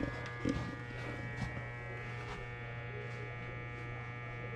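Steady electrical buzz over a low hum, unchanging throughout, with a few soft knocks in the first second and a half.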